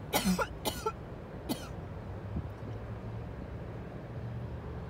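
A person coughs three times: two close together, then a third about a second later. A steady low hum runs underneath.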